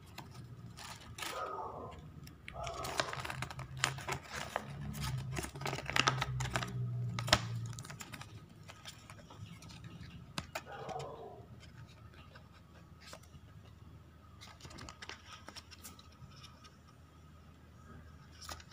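A folded paper checklist sheet being unfolded and handled: rustling and crinkling with many small clicks, busiest in the first half and quieter later. A few brief pitched sounds come through in the background.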